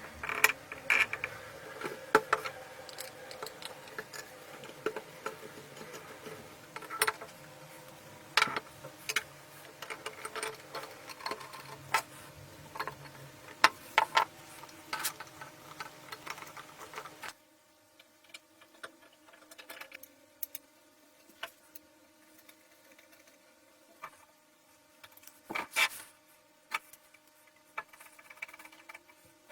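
Metal parts of a weighing scale being worked on by hand: irregular sharp clicks, taps and clinks, with the background becoming much quieter about 17 seconds in.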